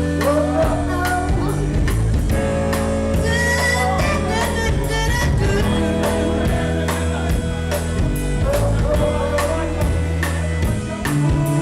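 Live band music with a steady drum beat and bass, with some singing over it.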